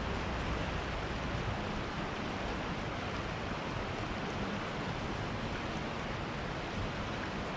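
Steady rush of a river flowing over shallow rapids.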